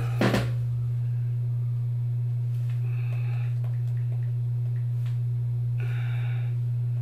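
A steady low hum, one constant tone held unchanged, with a short soft noise just after the start.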